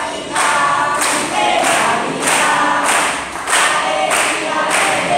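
A group of voices singing together, one short phrase after another with brief breaks between them.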